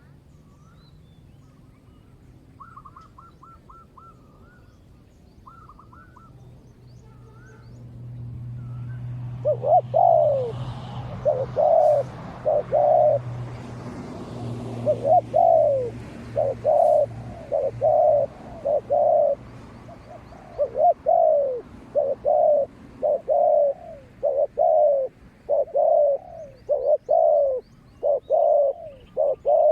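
Spotted doves cooing: loud, repeated low coo phrases in short groups of three or four notes that start about a third of the way in and keep going. Faint chirps of small birds come before them, with a low steady hum under the first part of the cooing.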